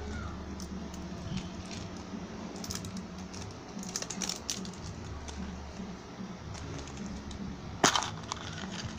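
Scattered clicks and taps of a white plastic surprise-egg capsule being handled and pried open, with one sharp plastic snap about eight seconds in. A steady low hum runs underneath.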